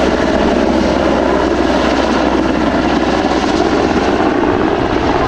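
AgustaWestland AW101 (SH-101A) three-engine naval helicopter flying past, its main rotor beating fast and steadily over the noise of its turbines.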